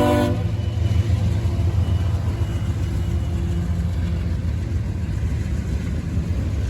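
A train horn blast cuts off just after the start, leaving a steady low rumble of the train running by.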